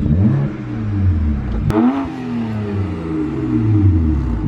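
A car engine being revved: the pitch climbs to a peak about two seconds in, with a sharp snap at the top, then falls back over the next two seconds while the engine keeps running.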